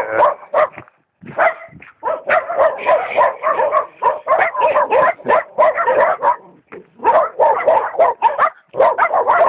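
Several dogs barking hard and fast, one bark overlapping the next, with a brief pause about a second in.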